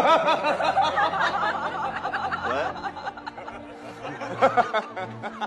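People laughing and chuckling, loudest in the first second, tailing off, then a short burst of laughter again near the end.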